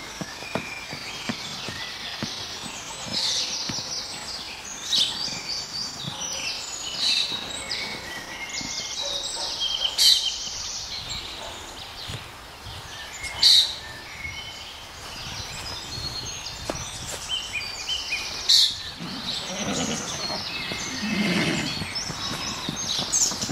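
Songbirds chirping and singing in the surrounding trees: many short, high calls overlapping, with a few louder sharp notes. A lower sound rises and falls for a few seconds near the end.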